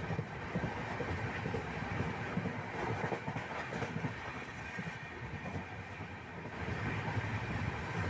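Passenger train running along the track, heard from inside a carriage: a steady rumble of wheels on rail with faint irregular knocks.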